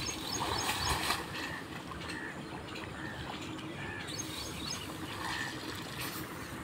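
Muddy paddy water sloshing and splashing as people wade through it and drag rice-seedling bundles, with short animal calls repeating in the background.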